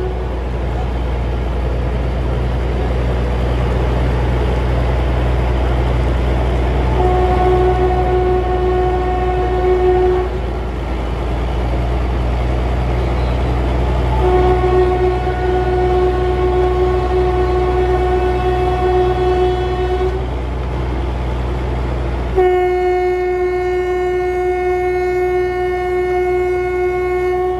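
Narrow-gauge train's horn sounding three long blasts over the steady rumble of the moving train: one of about three seconds some seven seconds in, one of about six seconds in the middle, and a third starting about five seconds before the end.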